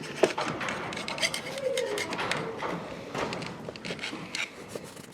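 Hand tools scraping and tapping on transfer case parts while the gasket mating surfaces are cleaned: a string of small clicks and scrapes.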